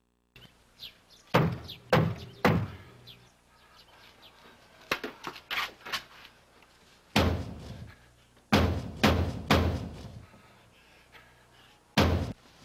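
Fists pounding on a heavy wooden gate: loud, deep thuds in groups, three in quick succession in the first few seconds, lighter knocks in the middle, then another run of blows and a last one near the end.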